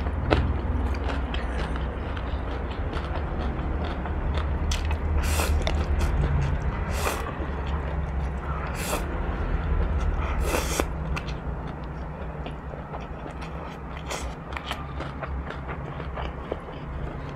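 Close-miked eating: chewing instant noodles, with about four short slurps spread through the middle seconds, over a steady low rumble.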